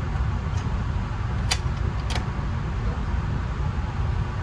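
Steady low rumble with a few sharp clicks: a faint one about half a second in, the loudest about a second and a half in, and another about half a second after that.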